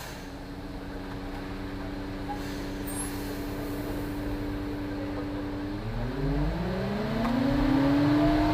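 Diesel engine of a front-discharge concrete mixer truck running steadily, then revving up about six seconds in and holding at a higher pitch. This is typical of spinning the drum faster to mix in water just added to the load.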